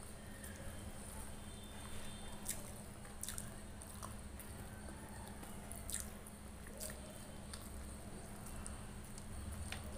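Close-miked eating sounds from fried fish and rice eaten by hand: fingers tearing and handling the fish on a steel plate, and wet chewing and lip sounds. Scattered sharp clicks and small squishes sit over a steady low hum.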